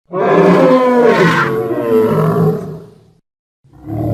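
Camarasaurus dinosaur sound effect: a long, loud call with a wavering pitch that fades out after about three seconds, then a second, deeper call beginning near the end.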